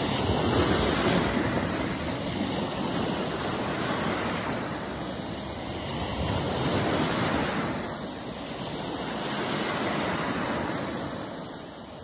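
Small sea waves breaking and washing in at the shoreline, the surf rising and falling as each wave comes in.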